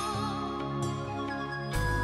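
Background music: soft, gentle instrumental with sustained chords, changing chord about three-quarters of the way through.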